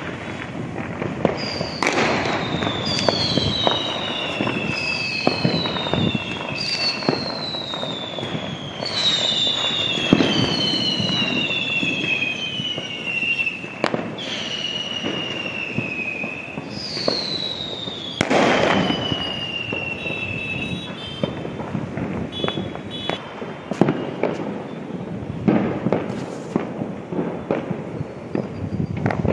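Fireworks and firecrackers going off at a distance: scattered bangs and crackles throughout, with a string of overlapping whistles, each falling in pitch, through the first two-thirds and one louder bang about two-thirds in.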